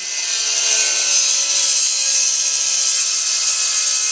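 Cordless circular saw running and cutting through cedar wall shingles, a steady whine that holds one pitch.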